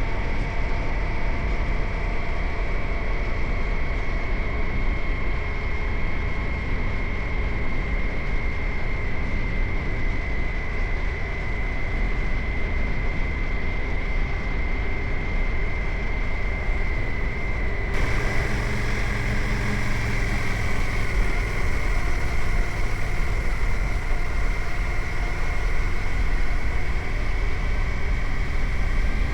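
Suzuki GSX-8R's parallel-twin engine running steadily while the motorcycle is ridden, with road and wind noise and only slight changes in pitch. About two-thirds of the way in the sound changes abruptly, with more hiss and a deeper hum.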